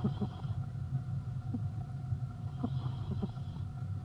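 A sleeping pet snoring: a soft breathy rasp about every three seconds, at the very start and again about two and a half seconds in, over a steady low rumble with a few faint clicks.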